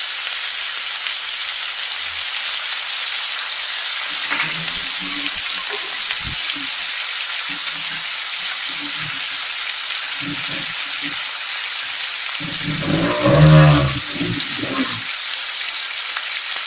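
Steady sizzling hiss of beetroot, onion and grated coconut frying in a non-stick pan, with a spatula stirring the mixture. A voice is heard briefly in the background near the end.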